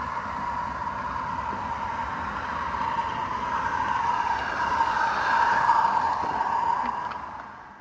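A 16mm-scale live-steam garden-railway locomotive and its coaches running past. The steady sound swells as the train comes close, loudest about two-thirds of the way through, then fades away near the end.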